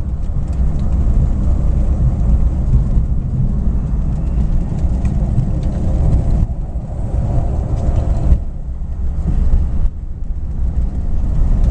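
1953 Cadillac Series 62 coupe under way, heard from inside the cabin: its 331 V8 running steadily with road noise, a continuous low rumble.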